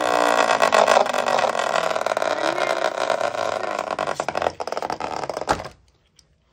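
Two Beyblade spinning tops whirring and grinding against each other and the plastic stadium floor, a steady buzz full of rapid rattling clicks with a few falling whine tones at the start. About five and a half seconds in there is a sharp knock as a hand grabs a top, and the whirring cuts off.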